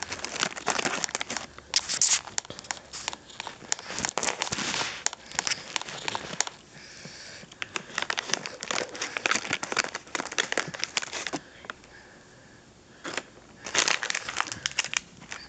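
Irregular crinkling and crackling, like something being handled and crumpled, in runs with two short quieter pauses.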